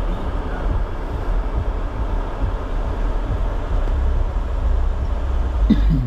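Jeep Gladiator driving slowly along a muddy woodland trail: a steady low engine and tyre rumble. Near the end there is a brief, louder sound.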